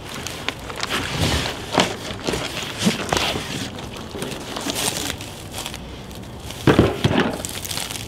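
Cardboard box and packing rustling and scraping as a portable fridge is lifted out of it, with irregular handling knocks; two louder thumps near the end as the fridge is set down on a wooden cart.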